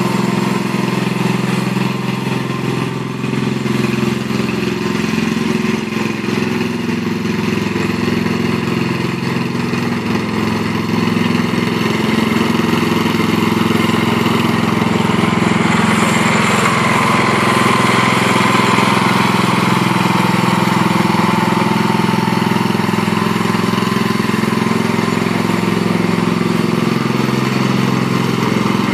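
Snapper rear-engine riding mower's small engine running steadily as the mower is driven. A higher whine swells and dips for a few seconds around the middle.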